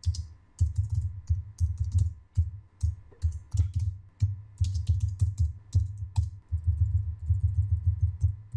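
Typing on a computer keyboard: an irregular run of keystrokes, each with a dull low thud, broken by a few short pauses.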